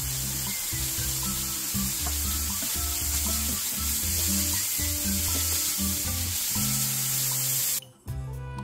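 Minced beef sizzling as it fries in a non-stick pan while being stirred with a wooden spatula, over background music with a steady bass line. The sizzle cuts off suddenly near the end.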